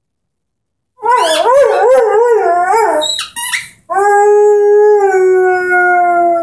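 Young Airedale terrier howling, or 'singing', with a squeaky ball in its mouth. A wavering, warbling howl lasts about two seconds, then comes a short high squeak, then one long held note that slowly drops in pitch.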